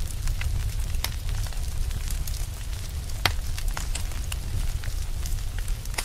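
Log fire crackling, with irregular sharp pops over a steady low rumble of flame; the loudest pop comes about three seconds in.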